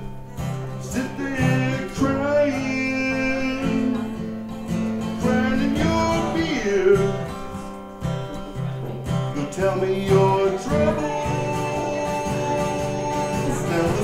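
Live band music: acoustic guitar strumming with a held melody line carried over it, sliding in pitch now and then.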